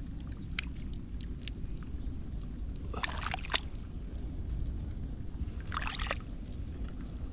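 Water and mud sloshing and splashing during hand searching of a crab hole, with scattered small clicks and two brief louder splashes, about three and six seconds in, over a steady low rumble.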